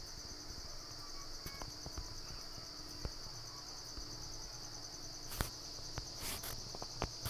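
Faint background insect chirping: a steady, high-pitched pulsing trill, with a few soft clicks, mostly in the second half.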